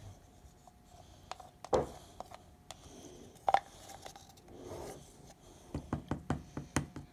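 A stick scraping and tapping inside a plastic paint cup to get the last paint out, with light rubbing and scattered clicks and knocks, several in quick succession near the end.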